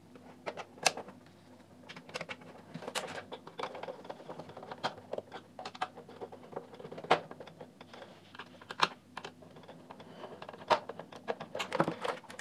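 Screwdriver turning screws into the plastic cabinet of a Philips RM210 cassette recorder, with irregular clicks and light knocks from the plastic case being handled; a few sharper clicks stand out.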